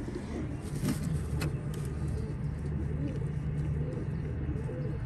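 Domestic pigeons cooing: a run of repeated rising-and-falling coos over a steady low hum.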